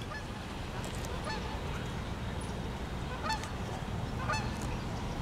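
A few short honking calls, spaced a second or two apart, over a steady low rumble.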